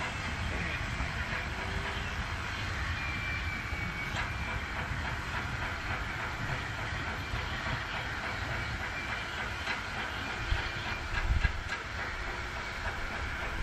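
Steam train running away down the line in the distance: a steady rumble of wheels on rail with some steam hiss. A couple of louder low thuds about ten to eleven seconds in.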